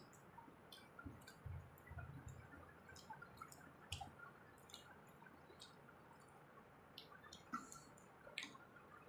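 Near silence with faint, scattered small clicks and soft squishy mouth sounds of people chewing food.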